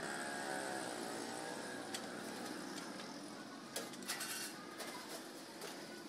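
Steel sheet being slid and lined up on the bed of a hand-lever guillotine shear: a scraping of metal on metal for the first second or so, then a single light clank about two seconds in and a few more about four seconds in, over steady background noise.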